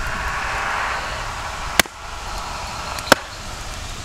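Two hatchet blows into a firewood log on a chopping block, sharp wooden knocks just over a second apart, the second the louder.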